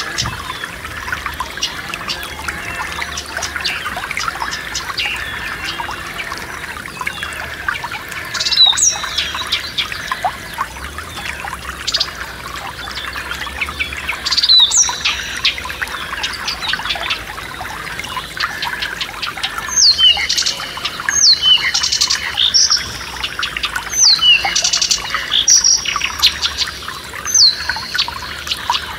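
Forest stream babbling steadily, with songbirds calling over it. Loud down-slurred whistled notes come twice in the first half, then a quick series of them, about one a second, through the last third.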